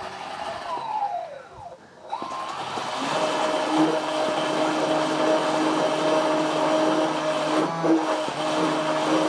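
Small electric motor spinning a two-blade 25 mm model ship propeller under water, drawing air down into the water. Its whine falls and eases off about a second and a half in, then picks up again about two seconds in and holds steady, with a short dip near the end.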